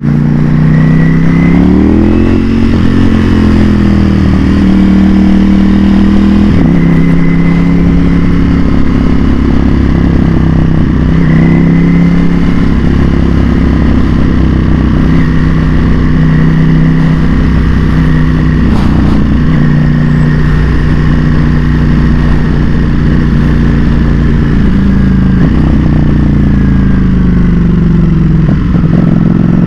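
Ducati Panigale V4S's V4 engine running under way in traffic, its note rising and falling several times as the bike accelerates and eases off.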